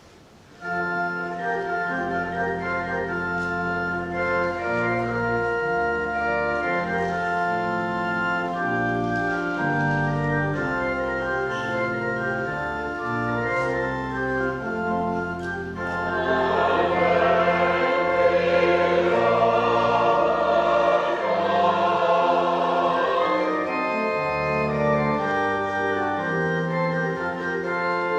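Church organ playing sustained chords over a stepping bass line, starting about half a second in; about sixteen seconds in, many voices join in singing.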